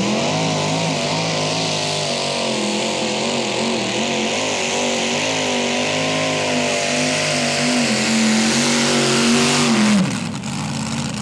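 Supercharged Chevrolet engine of a mini modified pulling tractor at full throttle while dragging a weight-transfer sled: it revs up at the launch, holds a loud, wavering howl through the pull, then drops in pitch sharply about ten seconds in as the run ends.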